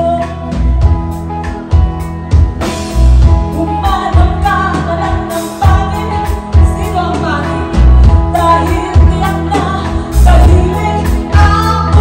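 Live rock band playing: a woman sings a melody into a microphone over electric guitars, bass and drums, with drum hits keeping a steady beat.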